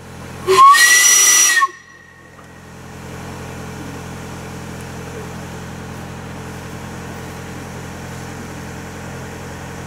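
Compressed-air pumpkin cannon firing: a sudden loud rush of escaping air with a whistling tone, lasting about a second and cutting off sharply. It is followed by a steady low hum.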